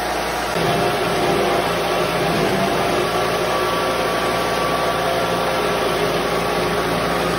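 Electric rosehip pulping machine running steadily, its motor giving a constant hum with a few fixed tones as it works cooked rosehips through the sieve. It gets a little louder about half a second in and then holds.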